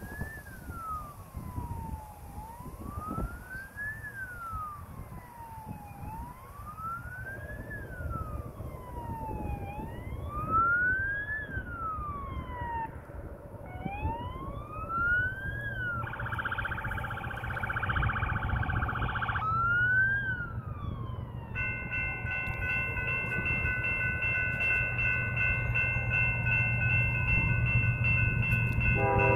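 An emergency-vehicle siren wailing, its pitch rising and falling slowly about every four seconds, with a few seconds of rapid warble midway. About three-quarters in, an approaching Union Pacific locomotive sounds its horn in one long, steady chord that grows louder near the end, over the low rumble of the train.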